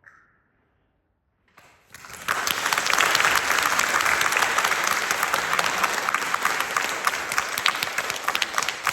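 A concert audience applauding. A moment of near silence, then clapping breaks out about two seconds in and goes on as dense, even applause.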